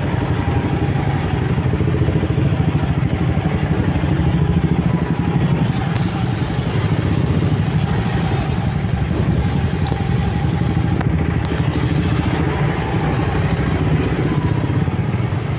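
A motorcycle engine running at low speed in a traffic jam, with the steady hum of surrounding cars and motorbikes.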